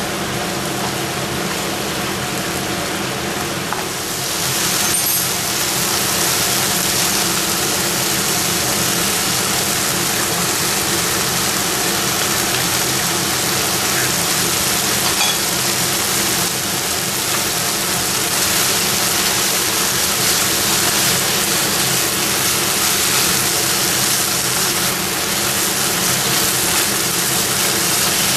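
A pan of chicken cooking on the stove, sizzling steadily over a steady hum, getting louder about four seconds in.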